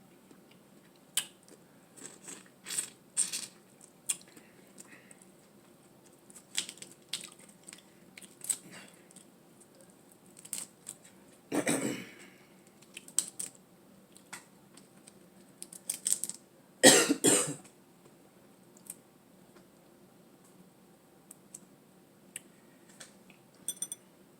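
Mukbang eating sounds: short clicks and smacks of crab shell and chewing, broken twice by a cough, about halfway through and again five seconds later, the second louder. The coughing comes from the spicy sauce catching in the throat.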